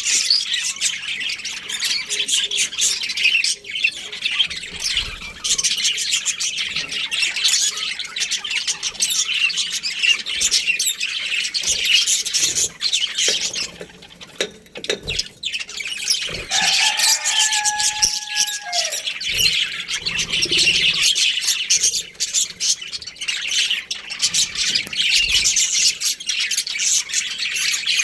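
A pair of budgerigars chattering and chirping without pause in fast, high twittering squawks. The chatter thins out briefly a little before halfway, and a longer, lower held note sounds soon after.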